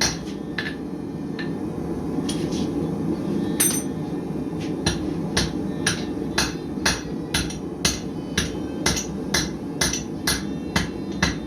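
Blacksmith's hammer striking hot steel on an anvil in a steady rhythm of about two blows a second, lighter and sparser for a few seconds near the start, over a steady low rumble. The smith is drawing out the steel so that it can be folded over for a tomahawk.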